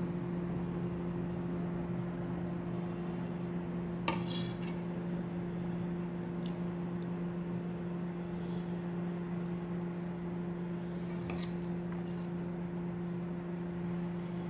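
Steel serving spoon clinking against a steel bowl while chicken curry is served onto a plate: a few sharp, ringing clinks, the loudest about four seconds in. A steady low hum runs underneath.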